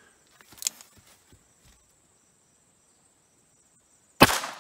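A single shot from a 3-inch Smith & Wesson Model 317 revolver firing a CCI Stinger .22 LR round: one sharp crack near the end, with a short echoing tail, after a few faint clicks.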